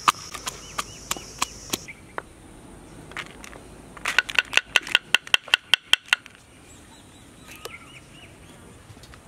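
A series of sharp knocks, a few a second, then about two seconds of fast, ringing strikes in the middle, with faint bird chirps near the end.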